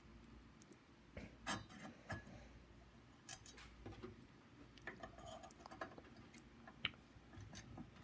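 Irregular small clicks and taps of screws and a precision screwdriver against a plastic CPU cooler fan and its metal heat sink while the fan is screwed down.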